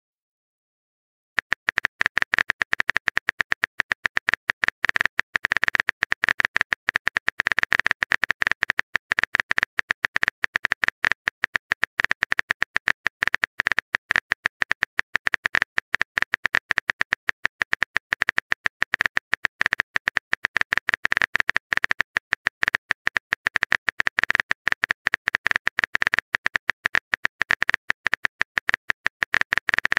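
Rapid phone-keyboard typing clicks, one short tap sound per character, many a second without a break, starting about a second and a half in.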